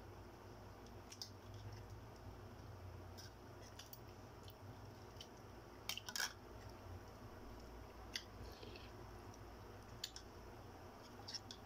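Scattered small clicks and crackles of balut eggshells being cracked and peeled by hand, with a louder knock about six seconds in.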